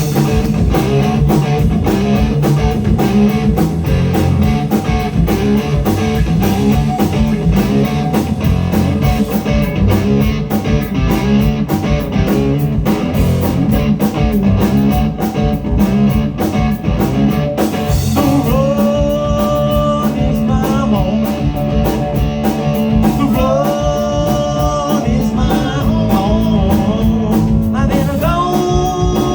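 A live blues-rock band playing an up-tempo number, with drums, bass and electric guitar. About two-thirds of the way in, long held lead notes that bend in pitch come in over the beat.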